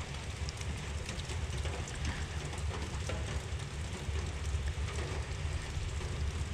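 Steady light rain with scattered drops ticking, over a steady low rumble.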